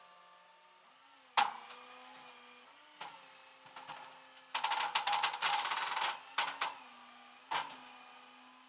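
Mechanical clicks and a loud buzzing rattle lasting about a second and a half, over a faint steady hum.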